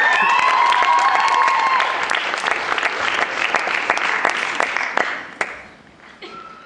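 Audience applauding, with shrill high cries held over the clapping for the first couple of seconds; the applause dies away about five to six seconds in.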